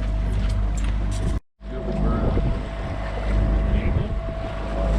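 Boat engine running steadily, with wind buffeting the microphone. The sound cuts out completely for a moment about a second and a half in, then resumes.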